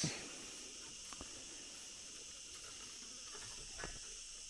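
Steady, high-pitched chorus of insects, with a few faint clicks.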